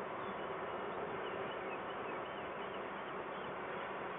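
Steady hiss and buzz with a faint low hum from a falcon-nest webcam's microphone, with faint high wavering chirps through the first half.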